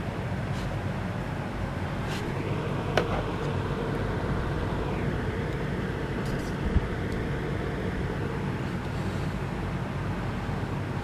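Steady low background rumble and hum, with two short clicks, one about three seconds in and one near seven seconds.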